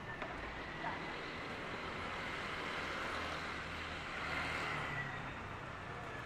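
A motor vehicle's engine running close by in street traffic, a low steady hum over the city street's background noise, with a brief rush of hiss about four seconds in.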